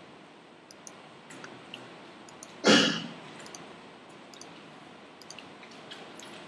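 Faint, scattered clicks of a computer mouse as menu items and dialog buttons are selected. About two and a half seconds in there is one short, louder burst of noise.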